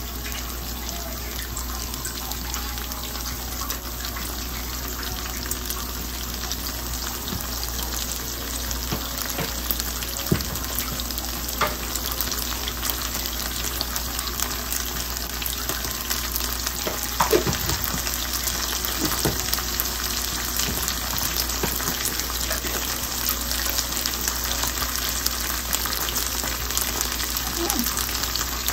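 Chopped onions frying in oil in a nonstick pan: a steady sizzle with a few sharper pops scattered through it.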